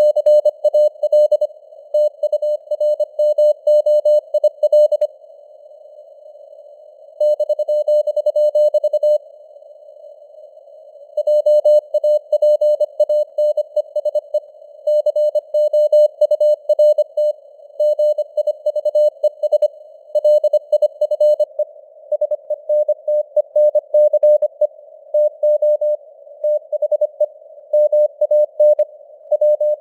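Morse code at 25 words per minute: a single-pitch tone keyed in rapid dots and dashes over a narrow band of simulated radio hiss, the signal strength rising and falling (QSB). The keying stops twice for about two seconds, around five and nine seconds in, leaving only the hiss.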